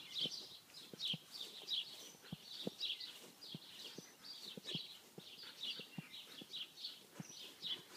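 Birds singing, with a steady run of short, high, falling chirps, several a second, and faint scattered soft knocks underneath.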